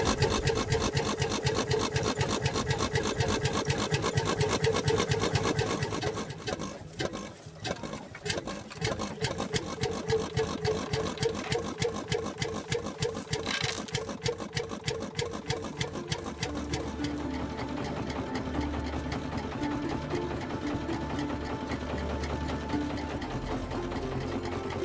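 Small Lanz Mops tractor's single-cylinder engine running at idle with a rapid, even beat. Music fades in under it about two-thirds of the way through.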